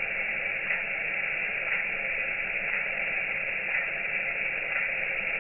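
Steady hiss of running water, even and continuous, with small swells about once a second.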